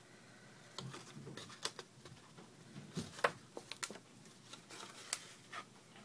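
Faint handling of paper and cardstock pieces: scattered light rustles and taps, several in a row, with no steady sound behind them.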